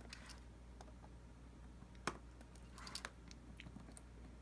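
Faint clicks and scrapes of a small tool working at a ribbon connector inside an iPhone 4, with a sharp click about two seconds in and a short scratchy cluster near three seconds.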